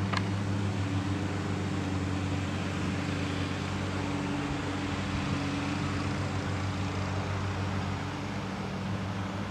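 A steady motor drone with an even pitch and no change in speed.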